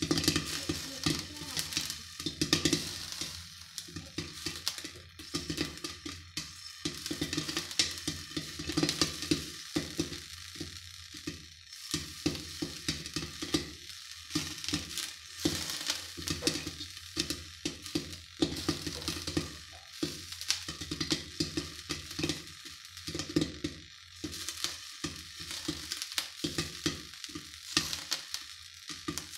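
Popcorn kernels popping in oil inside a kadhai covered with a glass lid: an irregular, dense run of sharp pops over a steady sizzle, with a low hum underneath. The popping is in full swing, the pan filling with popped corn.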